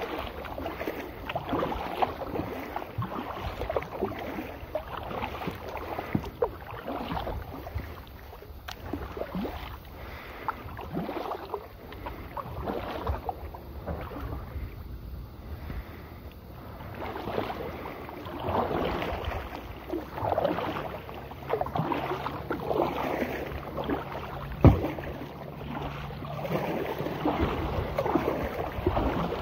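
Kayak paddle strokes splashing and dripping water beside a plastic kayak, in an uneven rhythm, with a little wind on the microphone. A single sharp knock comes late on, as of the paddle striking the hull.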